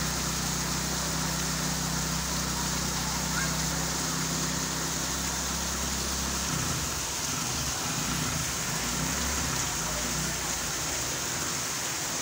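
Rain falling: an even, steady hiss. A low steady hum under it stops about halfway through.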